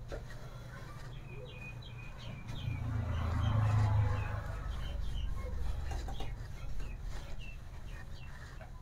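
A marker board being wiped clean with a duster: a rubbing sound that swells a few seconds in, with many short high squeaks throughout, over a low steady hum.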